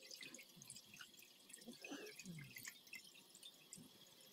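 Faint water dripping and splashing as a salt-cured tongue is rinsed by hand in a bowl of water, with small scattered drops and plops.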